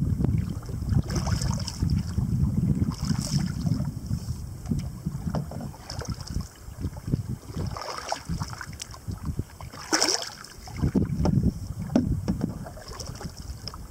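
Canoe being paddled through choppy water: paddle strokes and water splashing and slapping against the hull, with a sharper splash about ten seconds in. Wind rumbles heavily on the microphone, strongest in the first half.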